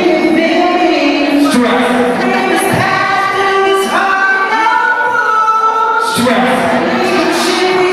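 Singing with music: a vocal melody of long held notes.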